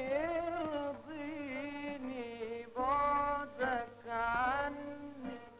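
A voice singing an Arabic song in long, wavering held notes, with music behind it.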